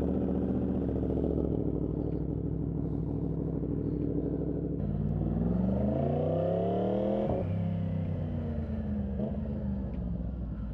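Yamaha MT-10's crossplane inline-four engine idling, then revved once: from about five seconds in the pitch climbs for two and a half seconds, drops sharply and eases back down to idle.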